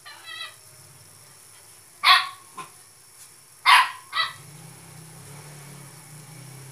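A dog barking in short, separate barks, the loudest about two seconds in and again near four seconds. A low steady hum comes in after the barks.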